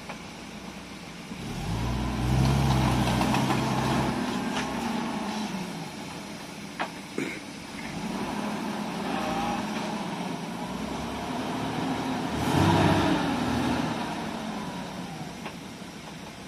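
Off-road vehicle engine labouring through mud, revving up twice in long pushes and easing off between them, with a couple of sharp knocks midway.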